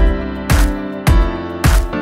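Background music with a steady beat: a low drum hit a little under twice a second under held chords.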